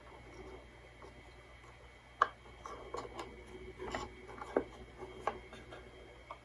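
Scattered light clicks and taps of a small screwdriver and plastic parts being handled while a small AM transistor radio's circuit board assembly is worked loose. The sharpest click comes about two seconds in.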